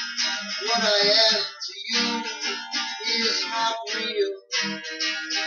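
Acoustic guitar strummed in a steady rhythm, chords ringing between strokes: an instrumental passage of a song.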